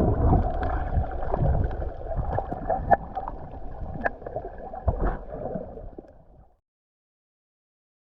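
Muffled underwater sloshing and gurgling of sea water with small clicks and knocks, fading out after about six seconds.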